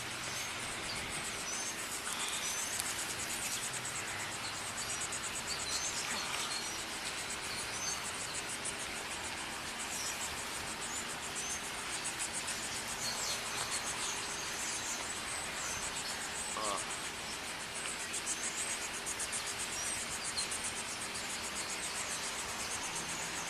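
Insects trilling steadily, a fast high-pitched pulsing chorus over a steady background hiss.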